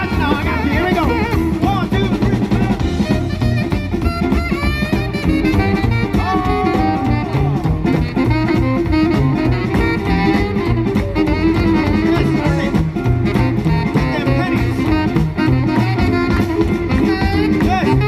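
Live swing band playing an instrumental passage: saxophones and brass (trombone, trumpet) over upright bass and a drum kit keeping a steady beat.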